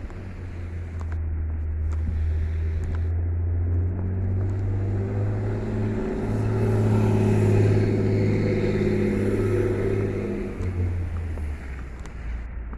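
A motor vehicle's low engine rumble with road noise, building to its loudest in the middle and easing off near the end.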